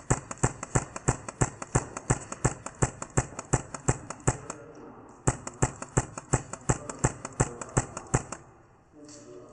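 Quick, evenly spaced footsteps on a hard floor, about four a second. They break off briefly about halfway through, resume for a few seconds, then stop near the end.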